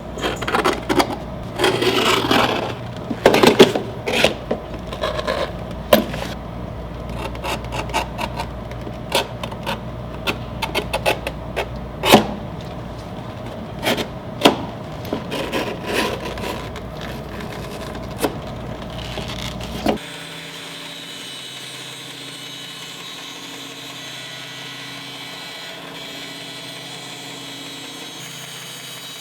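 A saw cutting through a leather boot, with a steady low hum under many sharp knocks, clicks and scrapes. About two-thirds of the way through, this stops abruptly and gives way to a quieter, steady hum.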